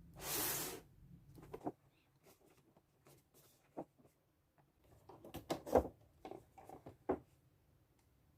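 Hands handling packaging while unboxing. A loud rustle right at the start, then scattered light taps, rustles and clicks, busiest about five to seven seconds in.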